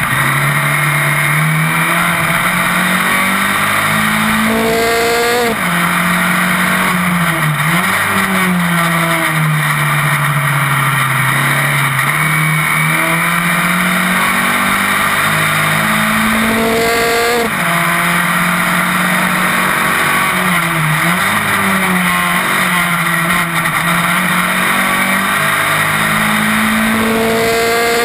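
Single-seater racing car's engine heard onboard at racing speed, its pitch climbing and falling with the throttle through corners. It rises sharply and drops for a quick upshift about five seconds in and again about seventeen seconds in.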